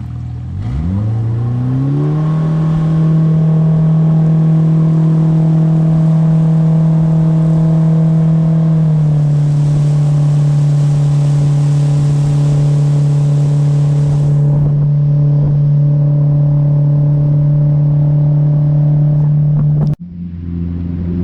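Motorboat engine speeding up from idle to cruising revs over about two seconds, then running steadily, easing down slightly about nine seconds in. The sound cuts off abruptly near the end.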